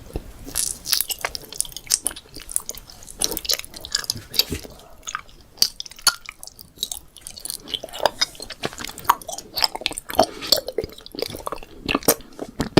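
Candy being chewed close to the microphone: irregular, closely spaced crunching and crackling bites.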